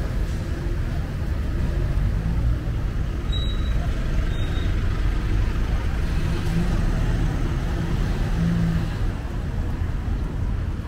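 City street traffic: the steady low rumble of vehicle engines.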